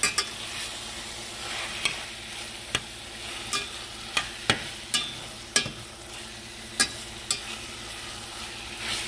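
Ground beef frying with a steady sizzle in a stainless steel pan while a slotted spatula stirs it, clicking and scraping against the pan about once a second.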